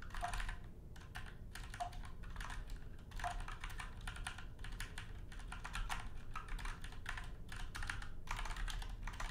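Typing on a computer keyboard: runs of quick key clicks with brief pauses between them.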